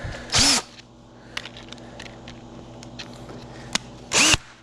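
Small clicks and taps of hand tools working on a refrigerator's panel and fasteners, over a steady low hum, with two brief louder sounds that rise and fall in pitch, one just after the start and one near the end.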